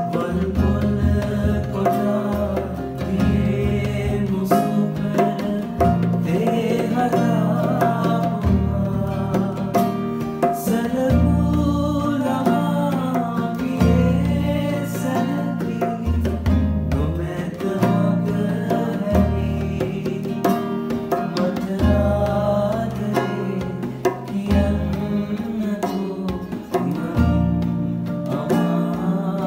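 A man singing a slow Sinhala song, accompanied by a strummed nylon-string classical guitar whose chords change every couple of seconds.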